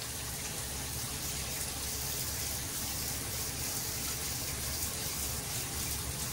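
Steady, even hiss with a faint low hum underneath.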